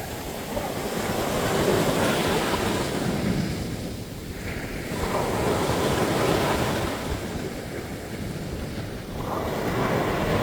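Sea waves breaking on a sandy beach, the surf swelling and falling back in three slow surges.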